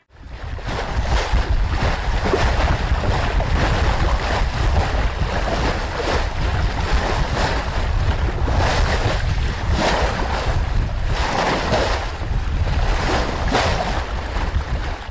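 Wind and sea noise: a steady rush of waves with a heavy low rumble of wind buffeting the microphone, swelling and easing in irregular surges. It starts and cuts off abruptly.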